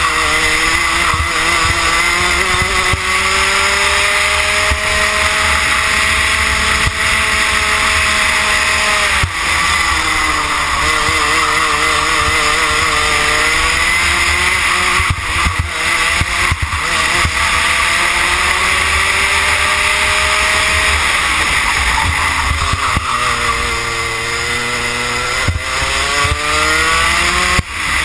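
Rotax Max 125 kart's single-cylinder two-stroke engine running hard on track, heard onboard over a steady rushing hiss. Its pitch climbs slowly as the kart accelerates down the straights and drops sharply when the driver lifts for a corner, about 9 seconds in and again about 23 seconds in.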